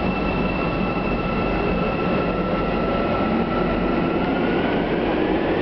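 Almaty metro train running through the tunnel, heard from inside the carriage: a steady rolling rumble with a high whine over it.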